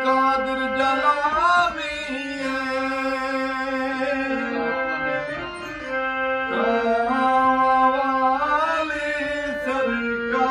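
Harmonium playing held chords and melody in a Sufi kalam, with a man's voice singing long notes that slide and bend over it.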